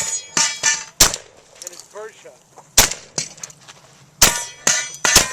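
Shotgun fire: an irregular string of sharp reports, the loudest about a second to a second and a half apart with quieter shots between, some followed by a brief ringing.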